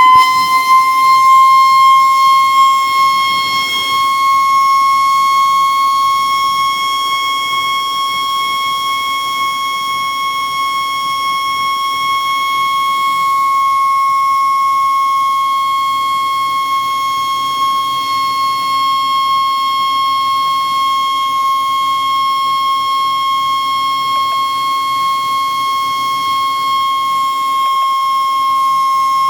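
Factory fire alarm sounding one continuous, steady tone, loud throughout. Its pitch rises slightly as it starts up and then holds.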